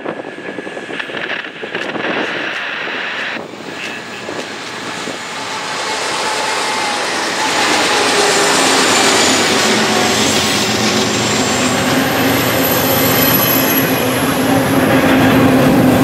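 Freight train with diesel locomotives approaching and passing close by, then double-stack container cars rolling past, the steel-wheel rumble growing louder over the first half. Near the end a thin high squeal from the wheels.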